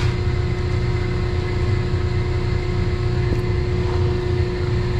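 Steady low drone of running machinery, with a constant hum tone over it, unchanging throughout.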